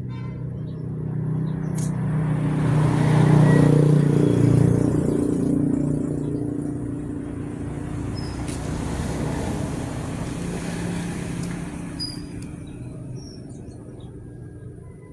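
A motor vehicle passing by: engine noise grows louder to a peak about four seconds in, then slowly fades.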